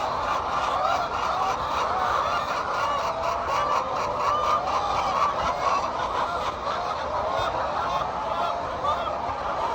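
A large flock of hens calling all at once, many overlapping wavering calls merging into a continuous dense chorus.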